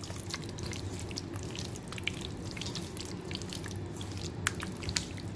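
Hand mixing chicken pieces in a yogurt marinade in a stainless steel bowl: a steady run of small wet squelches and clicks.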